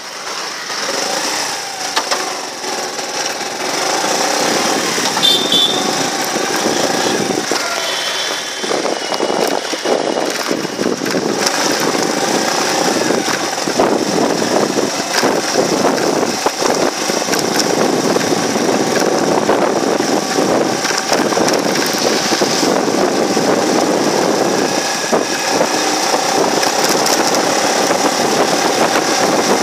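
Motorcycle engine running steadily while riding along a street, with the noise of surrounding traffic.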